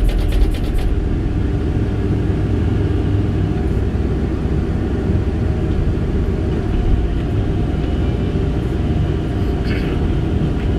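Kobelco 8-tonne excavator's diesel engine running steadily under load, driving a hydraulic earth auger that bores a pier hole into clay. A rapid rattle in the first second as dirt is spun off the auger.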